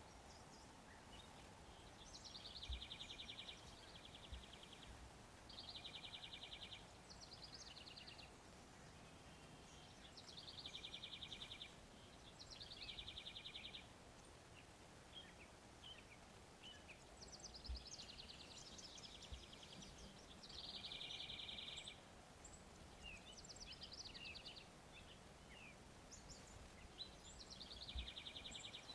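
Songbirds singing, short high trills of about a second each repeated every two to three seconds over a quiet outdoor background.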